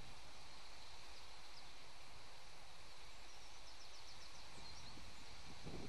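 Steady outdoor background hiss of open countryside, with a brief faint bird trill of quick high chirps a little over halfway through.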